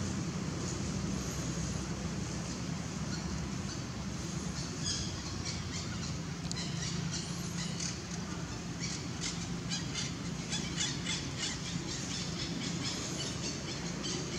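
Rapid high-pitched chirping calls in irregular bursts, starting about four to five seconds in and growing busier, over a steady low outdoor hum.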